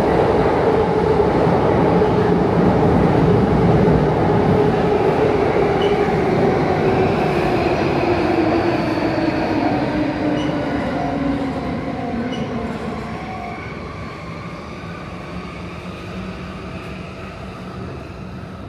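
Electric commuter train running past on the rail line, its motor whine slowly falling in pitch as the train noise fades away over the second half.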